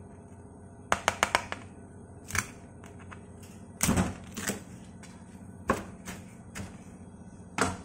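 Knife chopping through crisp-skinned roast pork belly onto a cutting board: a quick run of about five crunching cuts about a second in, then single chops every half second to a second, the loudest about four seconds in.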